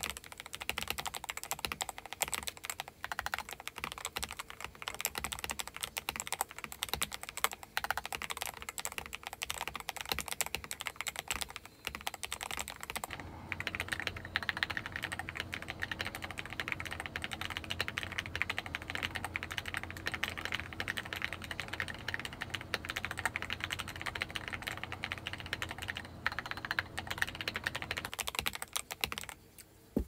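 Fast typing on a CIY Tester68 mechanical keyboard with lubed Akko Matcha Green Pro V3 switches, tempest and PE foam mods and XDA keycaps, recorded through an iPad Pro microphone: a dense, rapid run of key clacks that stops shortly before the end.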